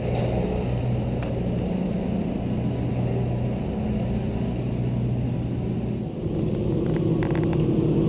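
Steady low rumble of wind and road noise on a camera riding along on a moving bicycle, with a low droning hum under it.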